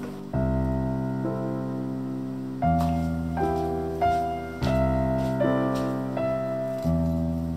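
Slow, gentle background piano music: chords struck every couple of seconds and left to ring and fade.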